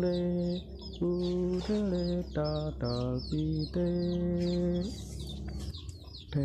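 Background music: a melody of held notes stepping up and down, with short high chirps repeating over it.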